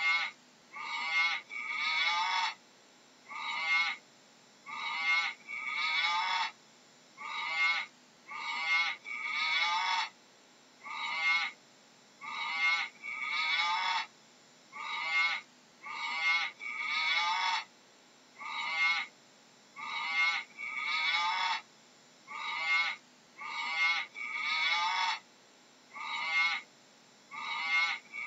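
Animal calls: short, high, pitched calls repeated a little more than once a second, often in quick pairs or threes with brief gaps between.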